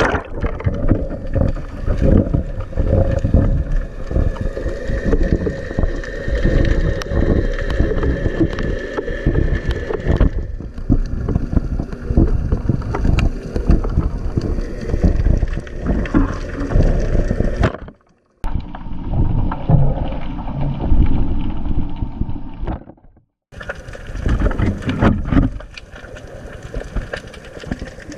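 Underwater camera's own audio: muffled churning water noise with dense crackles and clicks, and a faint steady hum in the first third. It cuts out abruptly twice for under a second.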